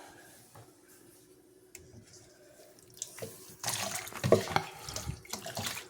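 Bath water splashing and running as a puppy is washed, in irregular bursts starting about three seconds in after a quiet stretch with a faint steady hum.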